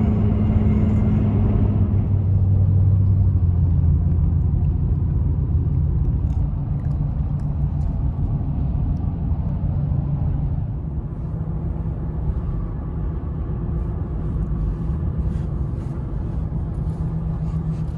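Engine and road noise inside the cabin of a Toyota Tundra pickup moving at highway speed: a steady low drone, easing slightly about two-thirds of the way in.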